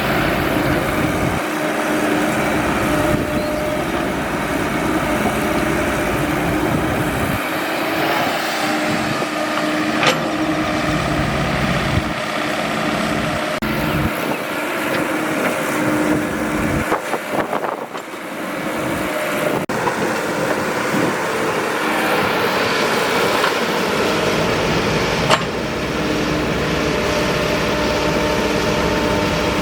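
Excavator's diesel engine running steadily under working load, with a dip about three-fifths of the way through and two sharp knocks, one near the middle and one near the end.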